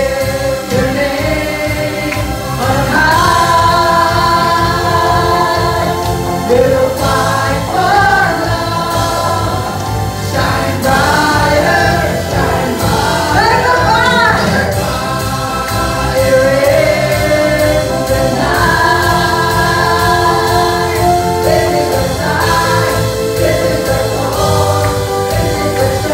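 Live Christian worship music: several voices singing together over an amplified band with a steady bass line.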